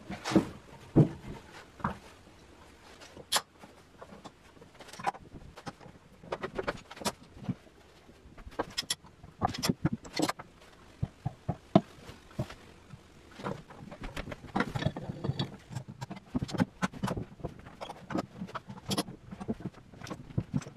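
Workshop clamping of a glued wood lamination: a few sharp mallet taps on the pine boards near the start, then irregular clicks and clanks of metal bar clamps and F-clamps being set and tightened.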